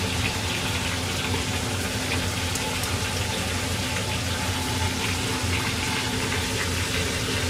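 Karaage deep-frying in hot oil, a steady even sizzle with a low steady hum underneath.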